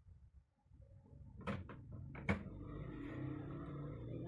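A few sharp clicks of a metal fork knocking on a ceramic plate, the last the loudest, about one and a half to two and a half seconds in. Then a steady low hum sets in and holds.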